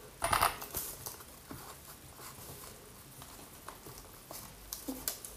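Hands handling a self-adhesive velcro strip and pressing it onto an RC truck's plastic chassis: a short noisy tearing burst about half a second in, then light rustling, clicks and taps.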